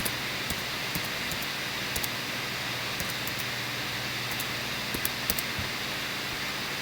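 Steady hiss with a low hum, the noise floor of a room recording, with scattered light clicks.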